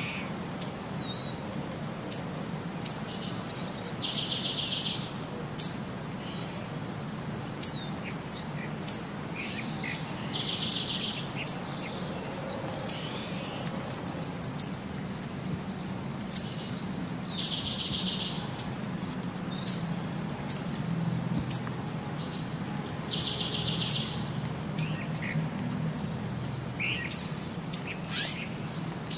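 Birdsong: many short, sharp high chirps, and a fast trilled phrase about a second long that comes back about every six seconds, over a faint steady low hum.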